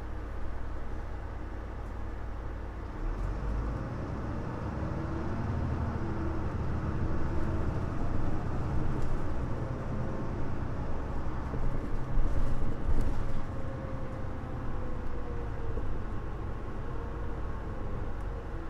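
Interior running sound of a Mitsubishi Fuso LKG-MP37FM city bus: its diesel engine note rises and falls as the bus drives and changes gear, over a steady low rumble of road noise.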